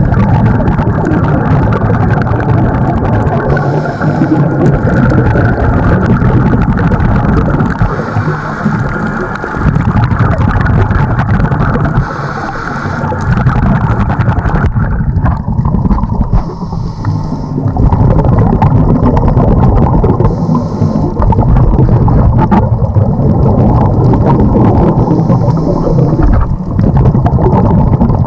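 Underwater rumble and bubbling around a scuba diver breathing through a regulator: a hiss of breath and a gush of exhaled bubbles about every four seconds.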